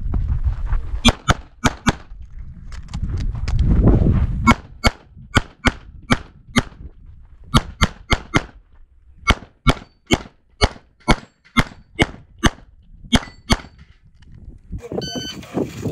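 Rapid shots from a CZ 75 SP-01 9mm pistol, about two dozen in all, fired mostly in quick pairs about a third of a second apart: double taps on each target of a practical shooting stage. A low rumble fills the first four seconds, and the shooting stops about two seconds before the end.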